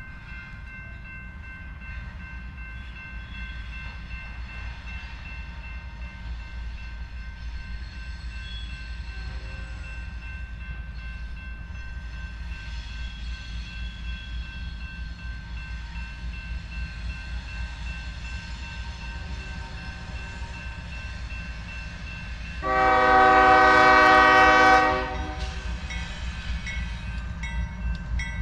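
Freight train rumbling steadily and slowly growing louder, with a single diesel locomotive air horn blast of about two seconds near the end.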